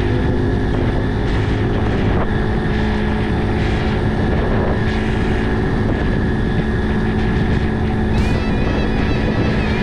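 Brixton Cromwell 125's single-cylinder engine running at a steady speed under way, an even drone over a rush of low noise.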